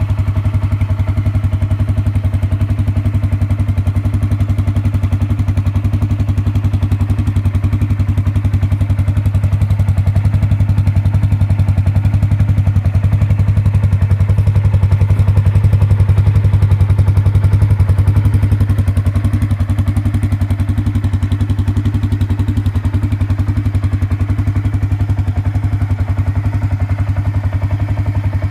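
Can-Am Outlander 400 ATV's single-cylinder engine idling steadily, its loudness swelling slightly midway.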